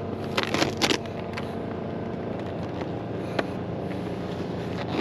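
A self-adhesive tar roofing sheet being handled and peeled, with sharp crackles and scrapes, several in the first second and single ones later. A steady motor hum runs underneath.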